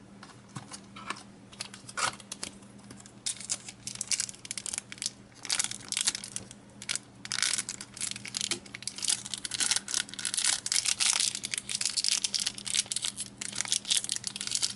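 Foil booster-pack wrapper crinkling and crackling irregularly as it is handled and pulled at to tear it open; the pack does not tear easily.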